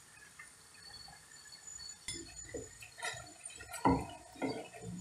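Minced beef and onions frying faintly in a pan with a fine crackle, then a few short knocks and clatters from about two seconds in, the loudest near four seconds.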